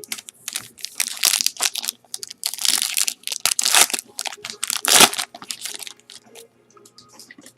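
A trading card pack's wrapper crinkling and being crumpled as the next pack of cards is opened, with the loudest crackling about five seconds in and a few light clicks after it.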